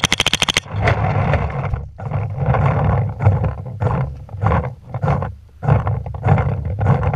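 A MacDev Drone2 paintball marker fires a fast string of shots in the first half-second. Rough, rushing noise with a low rumble follows, swelling and fading about once a second.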